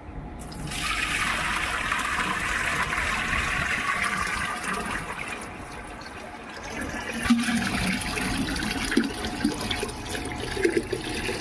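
Water poured from a steel pot into a small clay pot (matka), splashing and gurgling into it. The pour runs in two stretches with a brief lull about halfway through.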